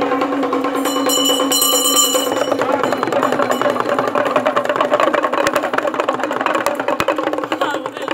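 Live traditional percussion music: a drum beaten in a fast, even beat, with a steady held tone underneath and a bright metallic ringing from about a second in.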